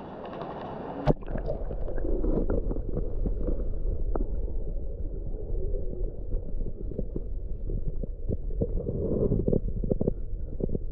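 A camera plunging under the water with a sharp knock about a second in, then the muffled sound of moving water heard from beneath the surface: a low rumble scattered with many small clicks.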